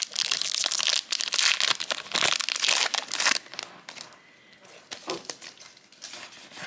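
Booster pack wrapper being crinkled and torn open, with dense crackling for about three and a half seconds, then fainter clicks and rustles of cards being handled.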